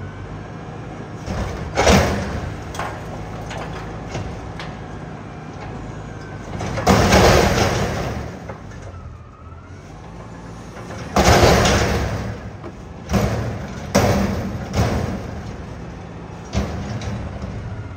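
CNG engine of an Autocar ACX front-loader garbage truck running under hydraulic load as its Heil Half/Pack arms hold a dumpster upside down over the hopper and shake it out: a steady engine hum broken by several loud metal clanks and crashes of the can and falling trash, the two biggest near the middle.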